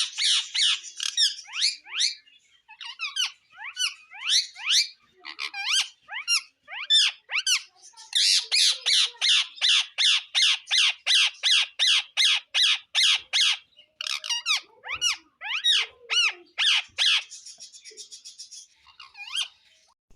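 Ringneck parakeet calling with a long series of short, loud, sweeping squawks, breaking into a fast even run of screeches, about three or four a second, through the middle.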